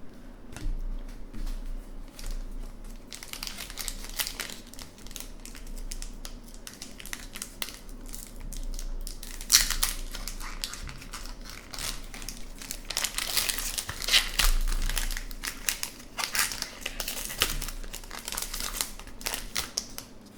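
Hockey card pack wrapper crinkling and tearing as a pack is ripped open and the cards pulled out, in irregular crackling spells with the loudest bursts about ten and fourteen seconds in.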